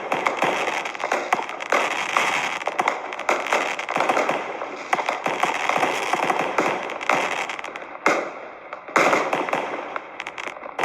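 Fireworks going off: a dense, continuous crackling with many sharp pops and repeated bangs. There is a brief lull about eight seconds in, then another loud burst.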